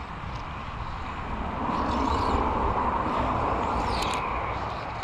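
A car passing on the road, its tyre and engine noise swelling to a peak about two to four seconds in and then fading, with wind buffeting the microphone.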